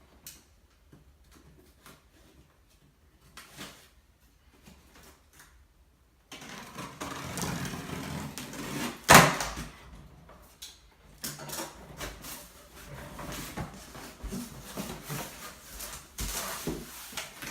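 Cardboard shipping box being opened and its packing handled. First a few faint clicks, then about six seconds in a busy stretch of rustling and scraping that continues, with one loud sharp crack about nine seconds in.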